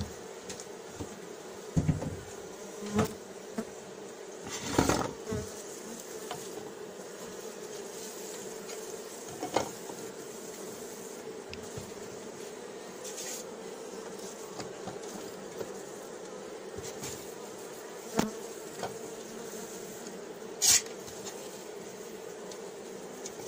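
Honeybee colony in an open wooden hive, buzzing steadily. Over the buzz come a few sharp wooden knocks and clatters from the hive boards being handled and laid over the frames, the loudest about three seconds before the end.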